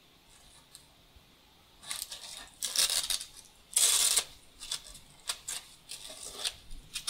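Black fabric straps holding a motor controller being pulled loose and drawn off it: a run of short scratchy rips and rustles starting about two seconds in, loudest about four seconds in.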